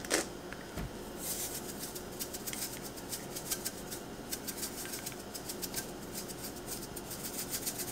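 Salt shaker shaken over a pot of water: rapid, dense rattling of salt grains that starts about a second in and goes on for several seconds, over a low steady hiss.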